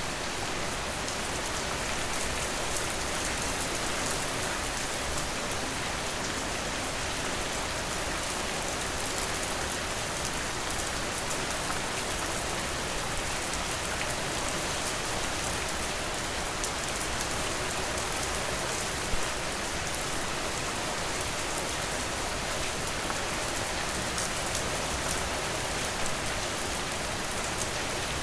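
Steady rain falling on a surface, an even hiss with scattered sharper ticks, and one louder tick about two-thirds of the way through.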